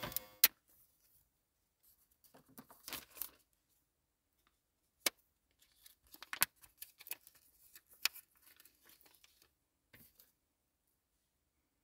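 A plastic packet torn open and handled, crinkling and rustling in irregular bursts with several sharp clicks, as a thin sheet is pulled out and unfolded.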